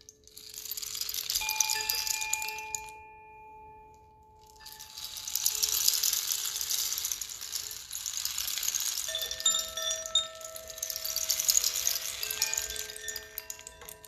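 Hanging wooden-cylinder wind chimes ringing as their sails sway, with several sustained bell-like tones over a shimmering jingle. There is a brief lull a few seconds in, then a longer flurry of strikes.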